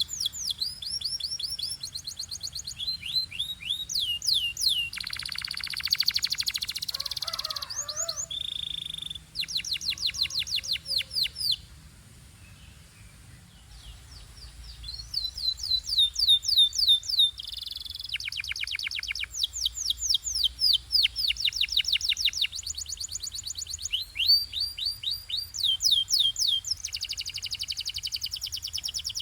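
Belgian canary singing: rapid trills of repeated high falling notes, a buzzy roll and a short steady whistle, broken by a pause of about two seconds around the middle before the trills resume.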